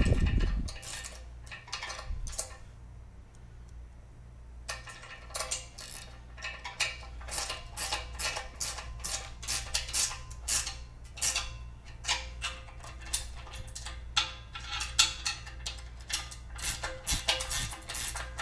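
Ratcheting combination wrench clicking in quick runs as nuts and bolts are tightened down, after a low thump at the start.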